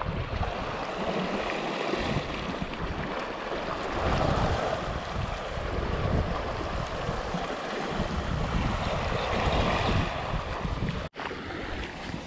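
Wind buffeting the microphone over the steady wash of sea surf, with uneven low gusts.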